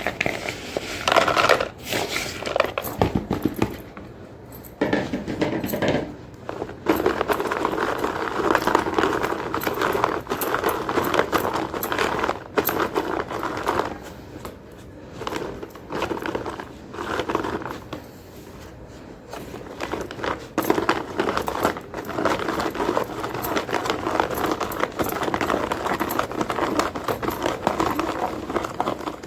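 Pieces of gym chalk being crunched and crushed: dense crackling and crumbling in stretches of several seconds, with short pauses between them.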